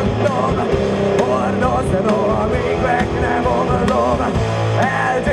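Rock band playing live in a punk rock and metal style: electric guitars, bass guitar and drum kit, with the drums hitting steadily.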